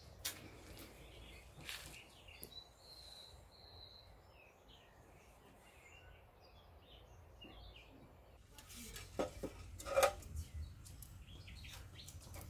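Faint outdoor ambience with birds chirping. About eight seconds in, a run of clicks and knocks begins, the loudest near ten seconds: sticks of firewood knocking against the metal firebox of a wood-fired samovar as it is stoked.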